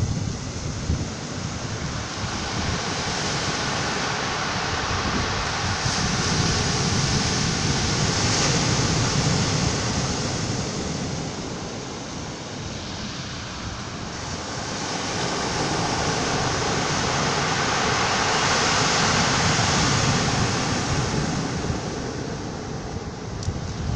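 Surf on a pebble beach: waves breaking and washing up over the stones, the rush swelling and fading twice, with wind on the microphone.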